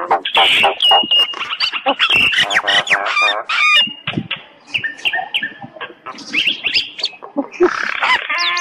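Common (Indian) myna calling and singing: a rapid, varied run of gliding whistles, harsh notes and clicks, with brief lulls about halfway through.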